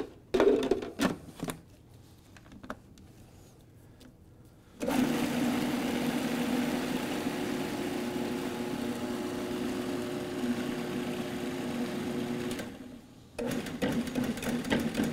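Electric food processor puréeing cooked lima beans into hummus: a few knocks from the lid at first, then the motor runs steadily for about eight seconds and stops, followed by a few short pulsed bursts near the end.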